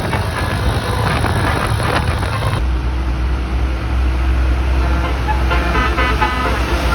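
A bus engine running with a deep rumble while a multi-tone telolet horn plays a quick tune of short notes, starting a little past halfway through.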